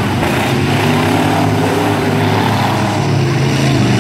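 Several demolition-derby van engines running hard together, their pitch rising and falling as the vans rev and push through the mud.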